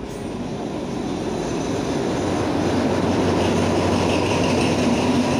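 Diesel-electric locomotive of a passenger train drawing into the station and passing close by along the platform, its engine and wheels growing steadily louder.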